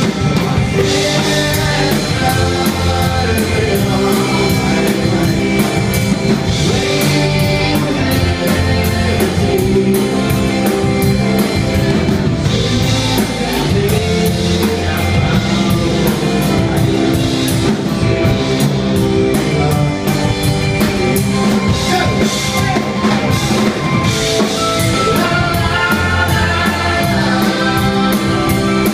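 Rock band playing a song on drum kit and guitars, with singing.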